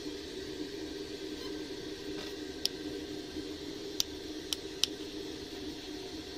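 Small plastic rocker switch clicking four times under a finger, the clicks sharp and short, over a steady low hum.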